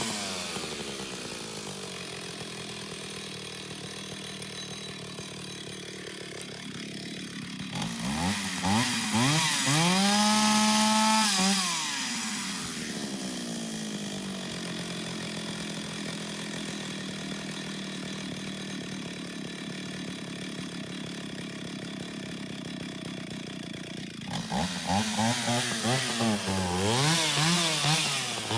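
Antique Stihl two-stroke chainsaw running at low speed, revved up to a high held pitch for a few seconds about eight seconds in, then dropping back. Near the end the throttle is blipped up and down several times.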